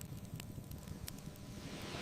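Wood fire crackling, with a few sharp pops, over a low rush of ocean surf that eases off in the middle.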